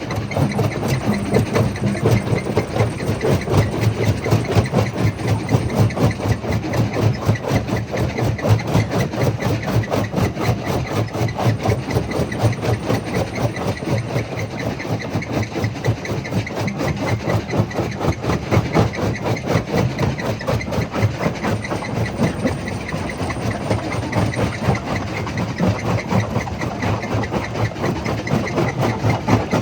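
Jaw crusher running: a steady heavy rumble with rapid, even pulsing.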